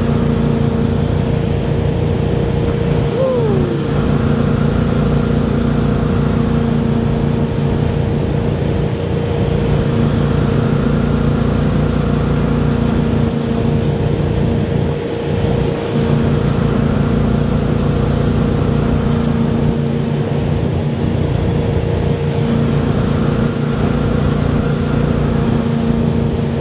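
Ski boat's inboard engine running steadily at towing speed, a constant drone under the rush of the boat's wake and spray.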